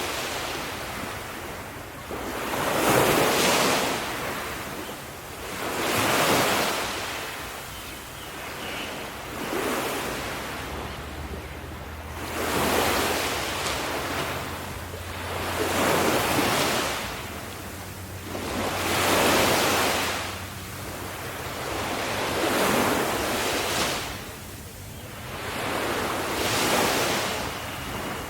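Ocean waves breaking and washing ashore in a steady rhythm, each surge swelling and ebbing about every three seconds.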